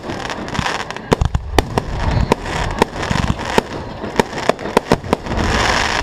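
Fireworks display: shells bursting in quick irregular succession, sharp cracks mixed with deeper booms, swelling into a dense crackle near the end.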